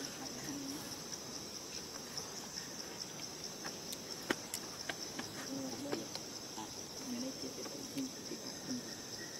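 Insects droning steadily and high-pitched in the forest, with a few sharp clicks around the middle.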